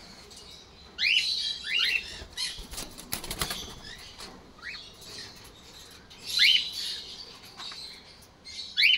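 Cockatiel wings flapping in a quick burst about three seconds in, among several short, rising chirps from cockatiels.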